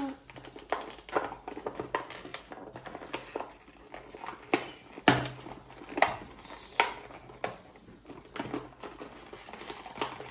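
Toy packaging crinkling and clicking as small accessories are worked free from a doll box by hand: an irregular run of short sharp clicks and rustles, the loudest about five seconds in.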